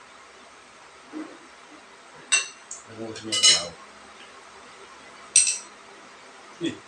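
A spoon clinking against a bowl three times during a meal of soup. A short, low voice-like sound falls around the middle.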